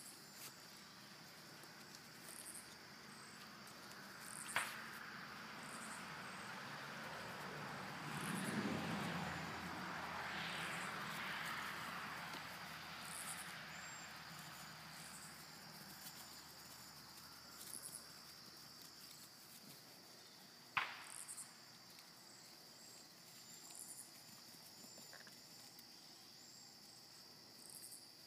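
Faint, steady high drone of insects chirring outdoors, with short high chirps repeating about once a second. A swell of louder noise builds and fades about eight to twelve seconds in, and there are two sharp clicks, one about five seconds in and one near twenty-one seconds.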